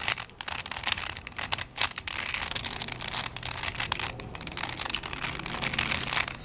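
Plastic Rubik's Cube Twist puzzle being turned by hand: a continuous run of clicking and scraping as its layers are twisted, with a few sharper clicks.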